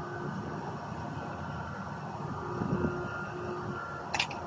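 A steady low background hum with a faint held tone, and one sharp click about four seconds in as the pump-action shotgun is handled while being wiped with a cloth.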